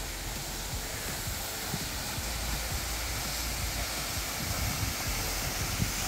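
Waterfall rushing: a steady, dense roar of falling water with an uneven low rumble underneath.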